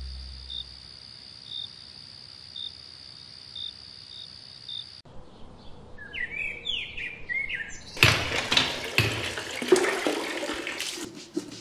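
Three ambiences in turn. First a steady high whine with a short chirp about once a second, then birds chirping for a few seconds, then, from about eight seconds in, water splashing and pouring onto a wet floor as a man bathes.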